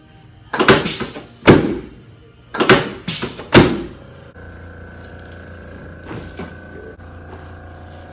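Five loud thuds in quick succession during a chiropractic adjustment, all within about three seconds, then a steady hum from about four seconds in.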